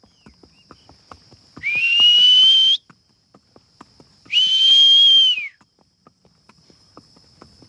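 A person whistling to drive cattle: two loud, long whistles of about a second each, the first sliding up into a held note, the second held and dropping away at its end. Under them, a horse's hooves clop steadily on the dirt track.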